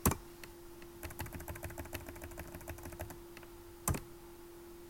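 Computer keyboard keys being pressed: one sharp key press, then about a second in a quick run of lighter taps lasting a couple of seconds, then another sharp key press near the end. A faint steady hum runs underneath.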